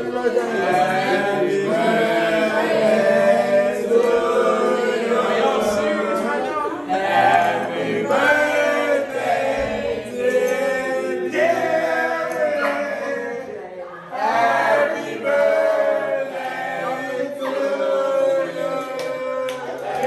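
A group of people singing together, loud and continuous.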